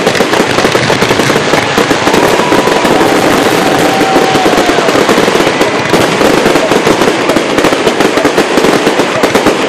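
Fireworks going off in a dense, unbroken barrage of rapid bangs and crackling, with a faint thin whistle in the middle.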